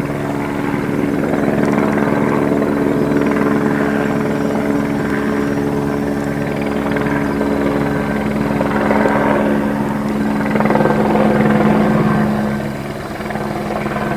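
Helicopter flying: a steady engine drone with several held low tones and the fast, even chop of the rotor blades, dipping a little in level near the end.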